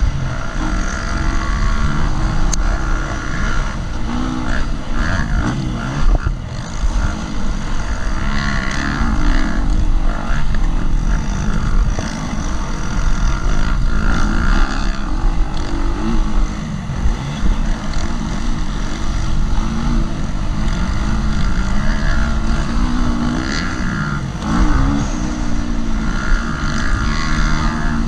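KTM 250 SX-F four-stroke single-cylinder motocross engine under race load, its pitch rising and falling over and over as the bike accelerates and slows for corners, heard from a helmet-mounted camera.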